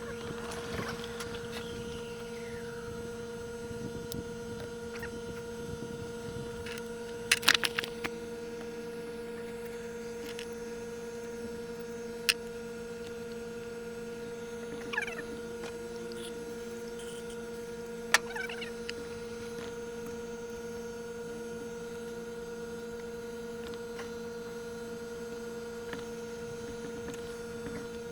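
A steady electrical hum, with a few sharp clicks and clinks scattered through it.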